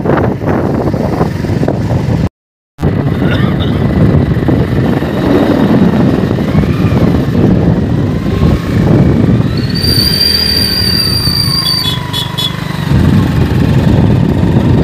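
Loud, steady low rumble of wind on a phone microphone and road vehicle noise, broken by a brief total dropout about two seconds in. About ten seconds in, a high steady tone sounds for about two seconds.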